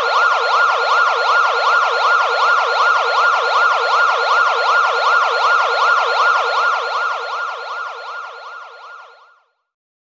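Emergency vehicle siren in a rapid yelp, its pitch sweeping up and down several times a second in an even cycle. Near the end it fades away.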